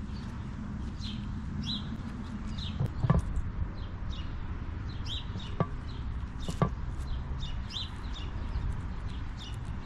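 Small birds chirping repeatedly over a steady low background rumble, with three sharp knocks about three, five and a half and six and a half seconds in.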